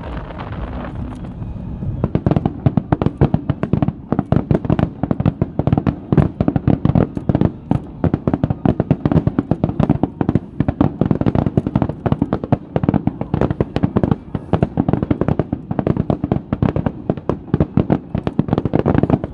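Fireworks going off: a low rumble, then from about two seconds in a dense, rapid run of sharp bangs that keeps up without pause.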